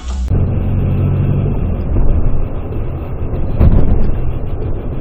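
Car driving, heard through a dashcam's microphone: a steady low rumble of engine and tyres, with a louder thump about three and a half seconds in.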